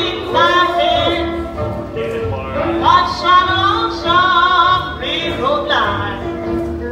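Blues music for dancing: a wavering, vibrato-heavy lead melody over a steady bass line.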